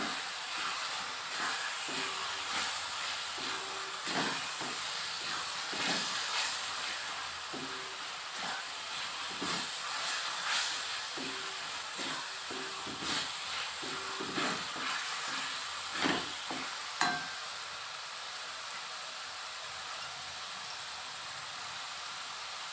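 Onion and coriander masala sizzling in an aluminium kadai, with turmeric just stirred in, while a wooden spatula stirs and scrapes against the pan in short strokes. The stirring stops about 17 seconds in, leaving a steady sizzle.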